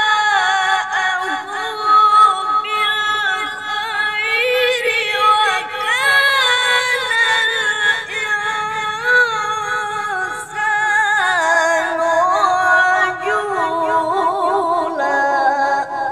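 Male qari reciting the Quran in melodic, ornamented tajwid style: one long held vocal line full of quick wavering turns. The melody steps lower about ten seconds in and again near the end.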